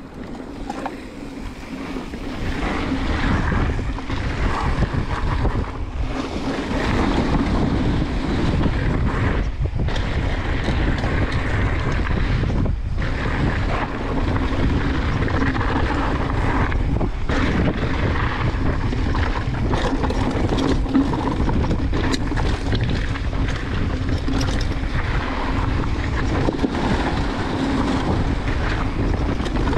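Full-suspension mountain bike being ridden along a trail, with wind rushing over the camera microphone. The noise builds over the first few seconds, then holds steady.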